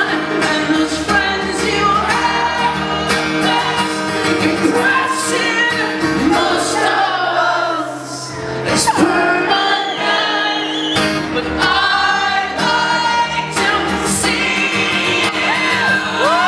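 Live solo acoustic performance: a strummed acoustic guitar and a male lead vocal singing, in a large hall.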